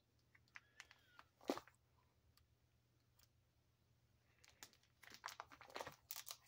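Faint crinkling and crackling of plastic binder sleeve pages being handled and turned over. A few soft crackles come in the first second and a half, then a denser cluster from about four and a half seconds in.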